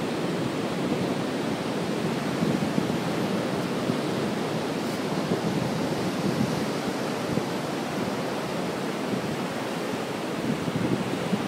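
Wind buffeting the microphone: a steady low rushing rumble with small gusts.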